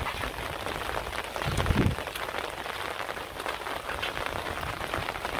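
Steady rain, with the sharp ticks of single drops hitting a close surface. About one and a half seconds in, a short, louder low sound is heard.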